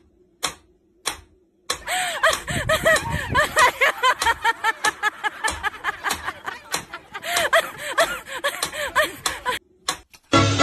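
Mechanical metronome ticking about once every two-thirds of a second. About two seconds in, a loud, dense run of rapid clicks with quick chirping rising-and-falling tones takes over and lasts until shortly before the end.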